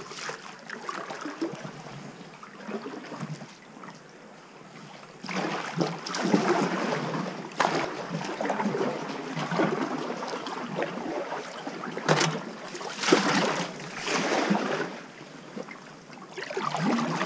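Kayak paddle strokes splashing and dribbling in calm sea water in a narrow rock gully. It is quiet for the first five seconds, then comes in uneven surges every second or two, with one sharp knock a little past the middle.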